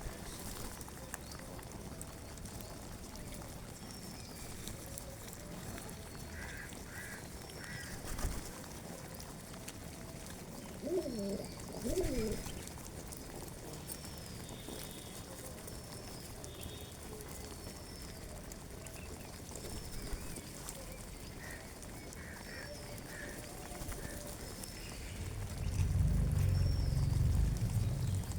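Small birds chirping, one giving a short high chirp over and over about once a second, with a few other calls mixed in. A loud low rumble comes in near the end.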